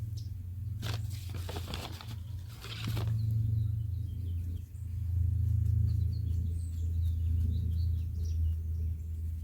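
A steady low rumble, with rustling or scraping noises for about two seconds early on, and small birds chirping in the background through the second half.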